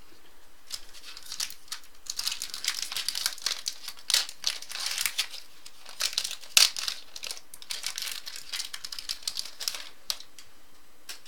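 Trading-card pack wrapper and cards crinkling and rustling as they are handled, in irregular bursts of crackles, with the sharpest crackle a little past the middle.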